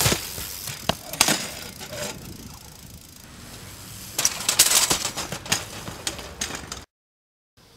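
BMX bike on concrete: sharp clacks of pegs and tyres striking a ledge, then a rapid cluster of clattering knocks as the rider and bike crash onto the pavement. The sound cuts to silence near the end.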